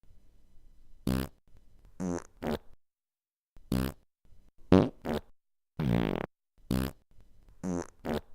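A series of about ten short, pitched fart sounds with short silent gaps between them. The longest, about half a second, comes near the middle.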